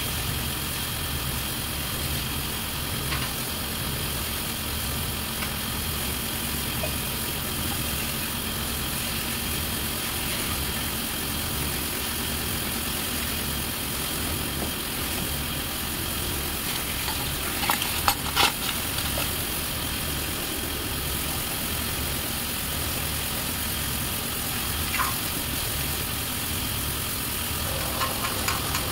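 Steady low mechanical hum, like an engine or motor running in the background, with a short cluster of sharp metallic clicks about eighteen seconds in and a fainter click near the end.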